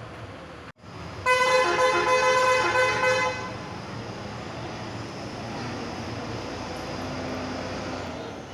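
A bus's multi-tone horn sounds one steady blast of about two seconds, after which the bus engine keeps running.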